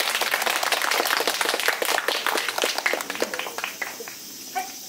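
A small group of people applauding. The dense clapping thins out and stops after about three and a half seconds.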